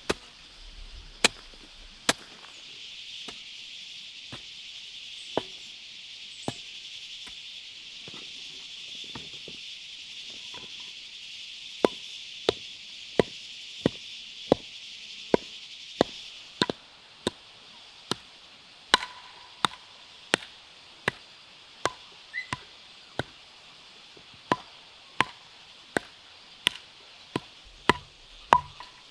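Repeated sharp chopping strikes of a hand tool: a few scattered blows at first, then a steady run of about one and a half strikes a second through the second half. A steady high-pitched buzz runs under the first half and stops about sixteen seconds in.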